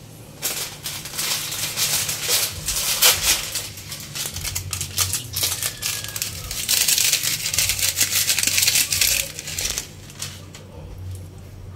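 Pan of small trevally with garlic, onion and ginger sizzling and crackling over the heat. It is a dense crackle of fine pops, loudest in the second half, and it dies down shortly before the end.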